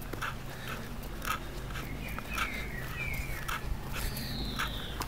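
Footsteps scuffing along an asphalt path at a walking pace, with a few short bird chirps about halfway through and a longer, falling bird whistle near the end.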